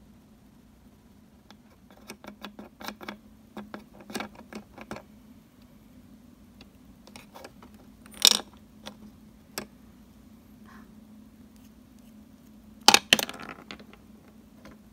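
Small plastic miniature kitchen toy pieces clicking and clacking as they are handled: a run of light taps, a sharp clack about eight seconds in, and a louder clatter near the end, over a low steady hum.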